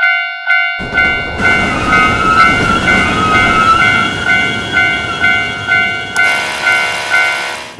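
Japanese railroad crossing alarm ringing its steady "kan-kan" about twice a second while a train rumbles through the crossing, starting about a second in. A wavering horn-like tone sounds for a couple of seconds early on the train's pass. Both the alarm and the rumble stop at the very end.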